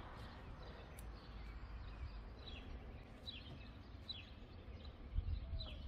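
Faint outdoor background: a bird repeating short, falling chirps about once a second over a low, steady rumble.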